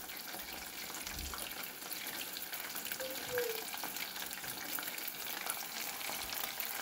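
Battered chicken cubes deep-frying in hot oil in a pot: a steady sizzle with dense fine crackling.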